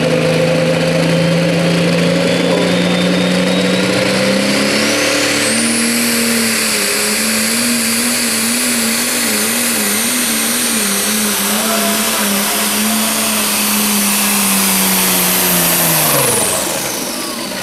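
Pro Stock pulling tractor's turbocharged diesel at full throttle under load while pulling the sled. The engine note rises about five seconds in and wavers while held high, with a turbo whine climbing and holding above it. Near the end the driver lets off and engine and turbo wind down together.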